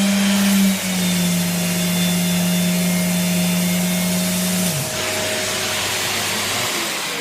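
Festool electric sander running with its dust extractor sucking through it: a steady motor hum under a rushing hiss of air. The hum steps down slightly in pitch about a second in, then winds down about five seconds in, while the extractor's air rush carries on.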